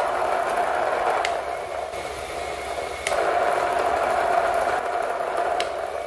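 Motor-driven generator rig running with a steady whine over a hiss. It drops in level about two seconds in, comes back a second later, and gives a couple of faint clicks.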